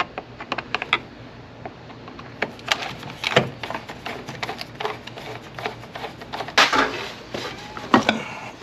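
A flathead screwdriver clicking and scraping in the screws of the hose clamps on a Eurocompulsion V4 air-intake filter canister as they are loosened, with short irregular taps and rubs. Near the end there are a few louder scrapes as the canister is handled and worked off the intake pipe.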